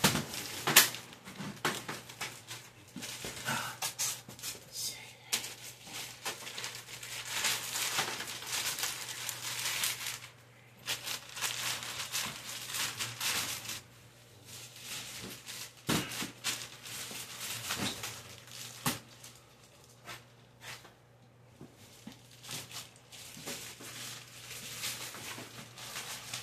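Clear plastic wrapping crinkling and rustling as it is handled on a new LED grow light panel, with a few sharp knocks and clicks, the loudest near the start and later around the middle.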